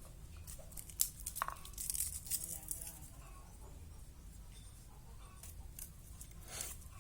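Dry, papery shallot skins being torn and peeled off by hand: a run of crackling and tearing about a second in, and one more short crackle near the end.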